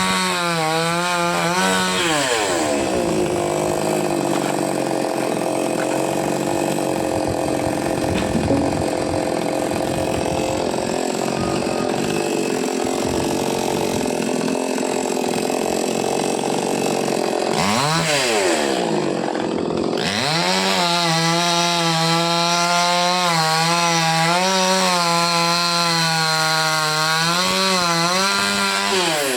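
Chainsaw cutting a coconut palm trunk. The engine runs at full revs, then drops in pitch and labours under load through the cut for about fifteen seconds. It dips and picks up again, then runs at high revs with a wavering pitch.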